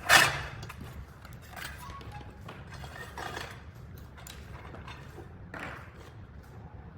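Handling noise as a drive belt is threaded through an electric curtain track rail: a sharp knock just as it begins, then a few short scrapes and rustles a second or two apart.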